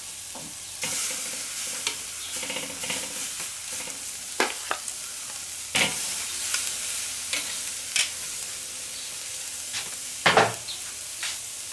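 Pork neck steaks sizzling as they sear on the grate of a charcoal kettle grill over direct heat. A few sharp clicks of metal tongs on the grate come as more steaks are laid on.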